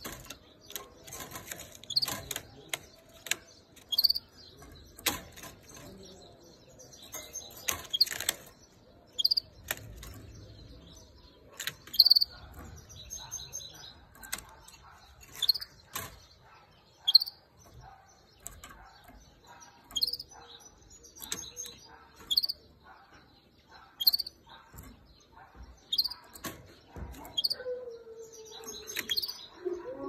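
Female canary calling: short, sharp, high chirps, repeated about every one to two seconds.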